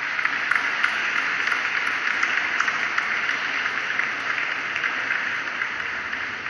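A steady hiss with faint crackling running through it. It rises in at the start and eases slightly near the end.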